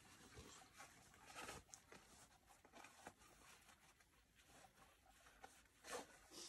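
Near silence, broken by a few faint, brief rustles and scrapes, the clearest about a second and a half in and again just before the end.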